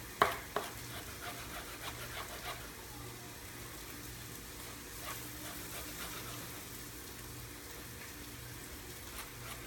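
A few light knife taps on a cutting board while fresh mint leaves are chopped, over a faint steady hiss.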